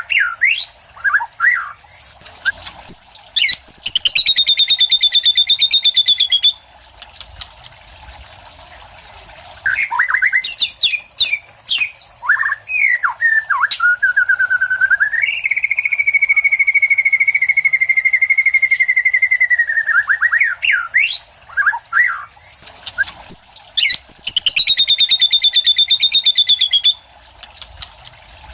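White-rumped shama singing loudly: three long, fast trills of about three to five seconds each, one starting about 4 s in, one about 15 s in and one near the end, with short whistled notes and chirps between them. The repertoire is one its owner describes as including lovebird, cililin, sparrow and kapas tembak imitations.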